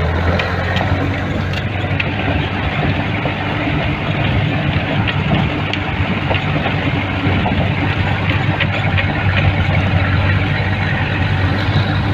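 A 4×4 jeep's engine running steadily with a constant low hum, heard from inside the cabin as it drives over a rough, rocky dirt track, with scattered knocks and rattles from the body.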